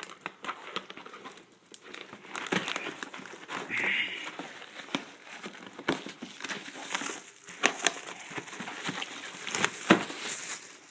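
Cardboard snack-cake box being opened by hand and the plastic-wrapped cakes inside handled: irregular crinkling and rustling with many short sharp clicks.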